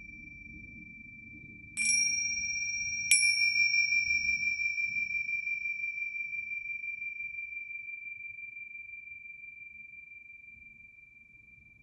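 Pair of Tibetan tingsha finger cymbals struck edge to edge twice, about a second and a half apart, each strike ringing out in a clear high tone. After the second strike the ring wavers and dies away slowly over several seconds.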